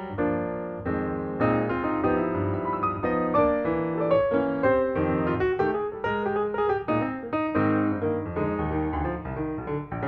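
Background piano music: a lively melody of many short notes played in quick succession over lower chords.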